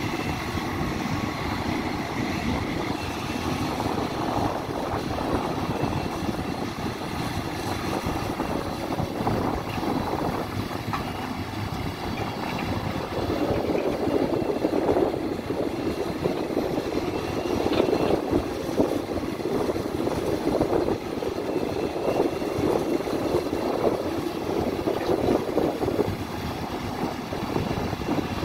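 Hidromek HMK310 33-tonne crawler excavator's diesel engine running with its hydraulics working through a truck-loading cycle. The engine gets louder about halfway through as the machine works harder.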